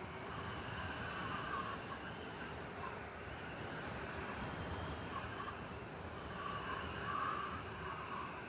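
Blizzard wind blowing steadily through a city, with a low rumble underneath and a wavering whistling note that swells and fades, loudest near the end.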